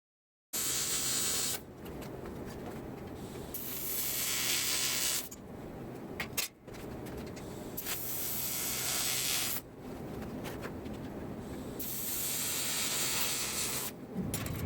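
TIG welder arc hissing in four bursts of one to two seconds each, with short pauses between them, over a steady low hum and a sharp click about halfway.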